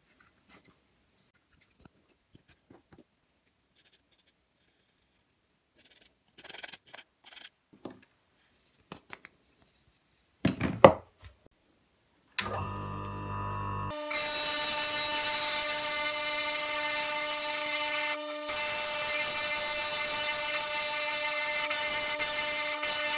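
A few faint handling clicks, then a loud knock, then a bench-top motor fitted with a spindle sanding drum is switched on about halfway through: it winds up over a second or so and runs with a steady whine while a small carved wooden eyeball is pressed against the spinning abrasive drum and sanded to fit its socket.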